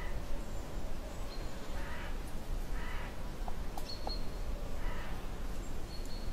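Bird calls on a video's soundtrack, a few short calls a second or two apart over a steady hiss, played back through room speakers.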